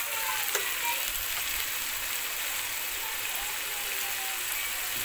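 Finely chopped onions frying in hot oil in a kadhai: a steady sizzle, with a wooden spoon stirring through them. The onions are at the early stage of frying, before they turn brown.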